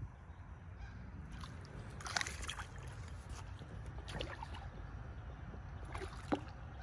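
A bird calling three times, short calls about two seconds apart, over a faint low rumble.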